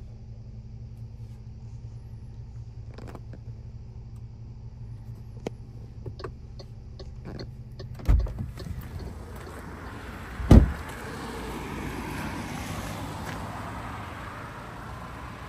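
A 2025 MG HS's door being opened with a thump about eight seconds in, letting in outdoor noise, then shut with a solid slam a couple of seconds later. Before that, a low steady hum inside the parked car with a few small clicks.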